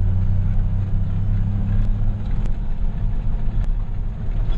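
A large farm machine's diesel engine running steadily, a continuous low hum with a few faint ticks over it.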